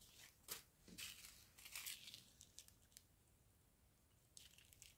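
Faint crinkling of small clear plastic zip-lock bags of diamond painting drills being handled. It comes in short crackles over the first three seconds and again briefly near the end.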